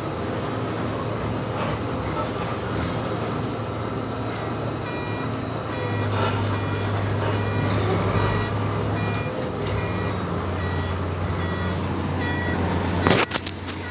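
Heavy diesel machinery running steadily, its engine rising about halfway through. A backup alarm beeps in a regular two-tone pattern, about one and a half beeps a second, then stops. A few sharp knocks come near the end.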